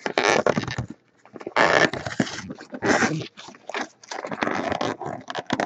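A cardboard card box being struggled open by hand: irregular scraping and rubbing of the packaging in short bursts, with brief pauses.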